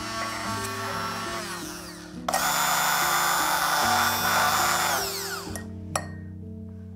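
Hand-held immersion blender chopping fresh dill in a glass. Its motor winds down about two seconds in, starts again a moment later and runs for about three seconds, then spins down, with a single click shortly after.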